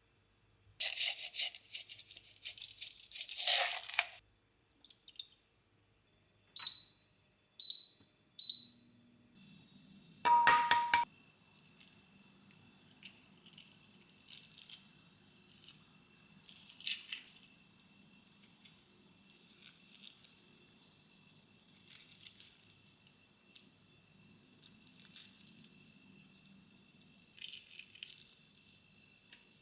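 Rustling and tearing of packaging for about three seconds, then three short electronic beeps about a second apart. After a brief clatter, a steady low appliance hum runs, with scattered faint light clicks.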